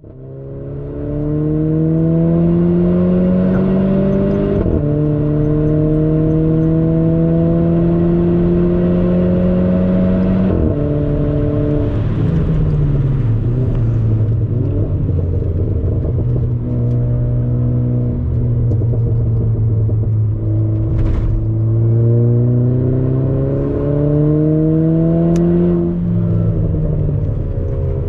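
Renault Clio 4 RS's 1.6-litre turbocharged four-cylinder engine heard from inside the cabin under hard acceleration on track. Its pitch climbs and drops sharply at quick upshifts about five and ten seconds in, falls as the driver lifts off, holds steady for a while, then climbs again to another upshift near the end. The sound fades in over the first two seconds.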